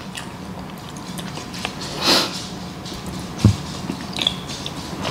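Close-miked chewing and wet mouth clicks of a person eating braised oxtail. A short breathy rush comes about two seconds in, and a low thump at about three and a half seconds.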